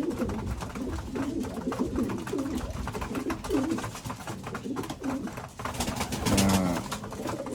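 Domestic pigeons cooing in a loft: many short, low, overlapping coos throughout, a little louder about six seconds in.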